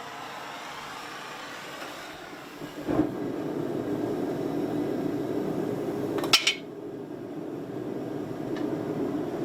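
Gas forge burner lighting with a soft thump about three seconds in, then running with a steady roar. A sharp metallic clink comes about halfway through the burn.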